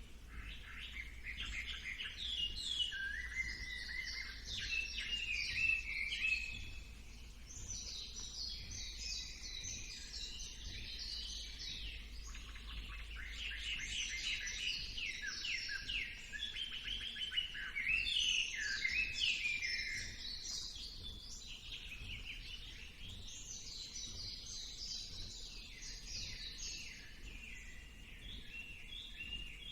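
A chorus of many songbirds singing at once: dense, overlapping rapid chirps and trills with no break, over a faint steady low rumble.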